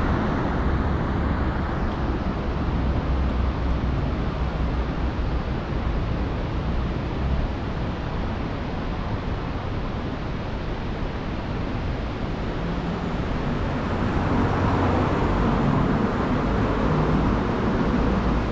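Steady rushing wind noise buffeting the microphone, with an uneven low rumble.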